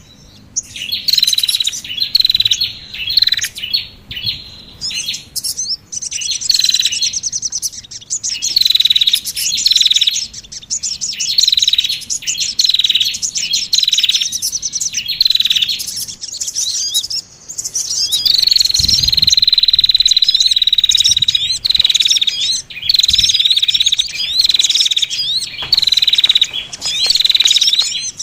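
Small songbirds calling in a bird-lure recording: quick, high-pitched chirping phrases repeated about once a second, with one longer continuous trill a little past the middle.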